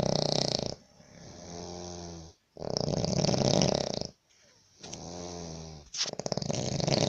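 A sleeping man snoring heavily: loud, rattling snores about every three seconds, each followed by a quieter, droning breath.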